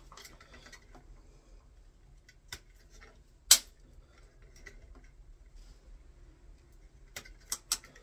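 Hand wire snips cutting the copper cable cores at a plastic switch back box. There is one loud sharp snip about three and a half seconds in and a quick run of smaller clicks near the end, with faint handling of the wires in between.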